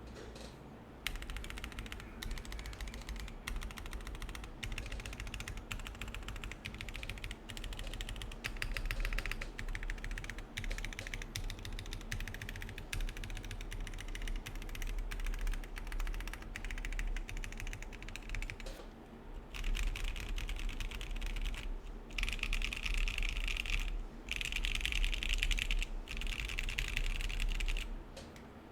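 Continuous fast typing on a gasket-mounted Neo 65 mechanical keyboard with Gazzew Boba U4T tactile switches in an aluminium plate and no foam dampening. The keystrokes start about a second in and break for a few short pauses in the second half. The last third has louder stretches of fast typing.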